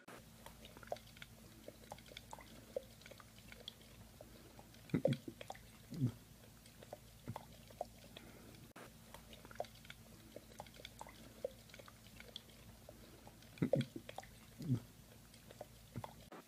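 A husky biting and licking at a drinking glass of water: many small clicks of teeth on glass, with twice a pair of louder knocks about a second apart.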